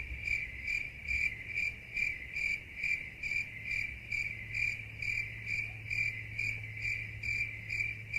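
Cricket chirping in an even rhythm, about two and a half chirps a second, over a low steady hum. This is the 'crickets' meme sound that stands for awkward silence.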